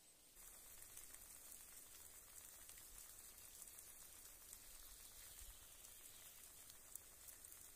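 Eggs frying in a pan on a small wood-burning camp stove: a faint steady sizzle with fine crackles, starting about half a second in.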